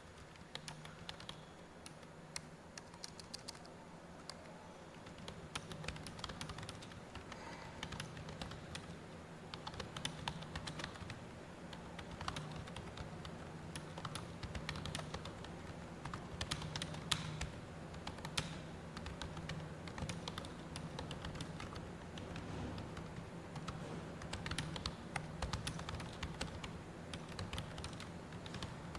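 Continuous typing on a computer keyboard: a steady stream of key clicks, several a second, over a low steady hum.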